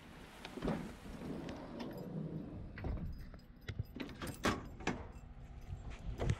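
A bunch of keys jangling in the hand while walking on concrete: a run of short, irregular clicks and light knocks.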